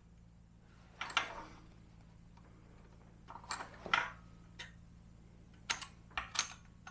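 Steel clamp parts being handled and set in place, giving a handful of short, sharp metallic clicks and knocks at irregular intervals, the loudest about four seconds in.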